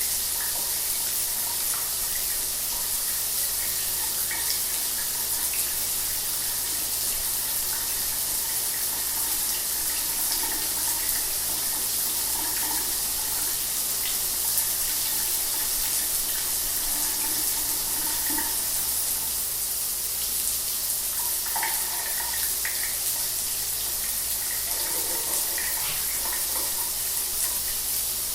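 Shower water running steadily: an even hiss of spray with small scattered splashes.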